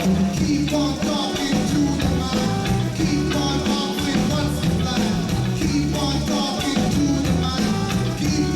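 Live reggae band playing: a bass line under drums and percussion keeping a steady beat.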